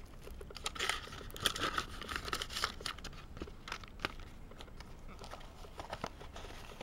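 Crinkling and rustling of tissue paper and a clear plastic sleeve being handled, with scattered small crackles and clicks, busiest in the first few seconds.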